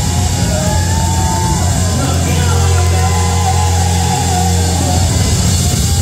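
Live rock band playing loud through stage amplifiers: electric guitar and bass guitar. A low bass note is held from about two seconds in to about five seconds in, under sliding guitar notes.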